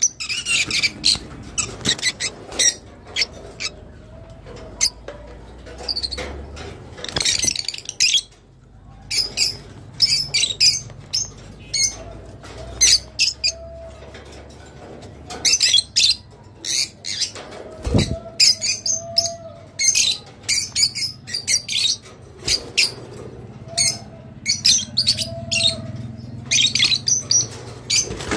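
Rosy-faced lovebirds chirping and squawking, many short sharp high calls in quick runs with brief pauses between. A single knock partway through.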